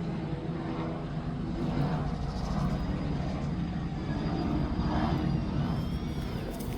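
A distant engine's low, steady drone that swells a little through the middle and eases off toward the end, with a faint high mew or chirp near the end.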